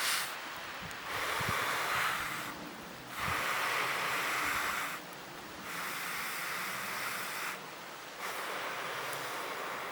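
Air blown in long, even hissing puffs, four times, each about one and a half to two seconds with a short pause between.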